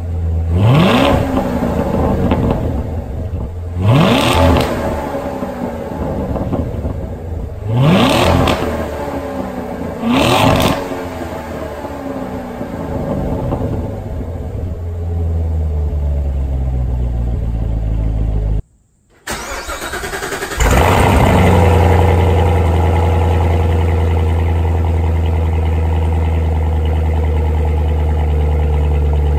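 C7 Corvette Stingray's 6.2-litre LT1 V8 on its stock exhaust, revved in four short blips and then settling to a steady fast idle. After a brief break, the same engine fitted with an AWE off-road X-pipe (secondary cats removed) fires up from cold, flares and settles into a steady fast idle.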